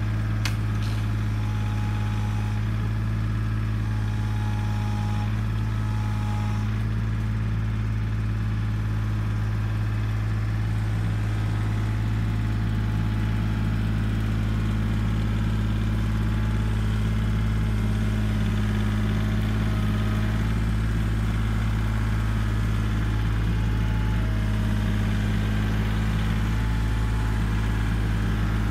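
Compact tractor's diesel engine running steadily at low revs as the tractor creeps forward, with one sharp click about half a second in.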